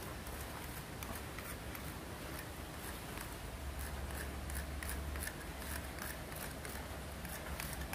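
Faint, irregular light clicks over a low steady hum.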